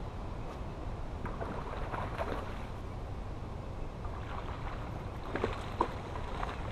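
Steady wind rumble on the microphone. A hooked largemouth bass splashes and thrashes at the surface beside the boat, sharply, near the end. A few lighter sharp sounds come earlier.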